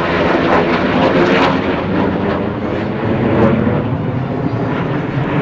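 Military aircraft in a formation flypast passing low overhead: loud, steady engine noise from a large aircraft flanked by two jets.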